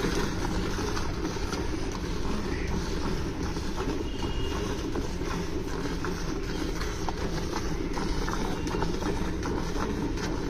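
Cow being milked by hand, milk squirting into a steel bucket in short faint spurts under a steady low rumble.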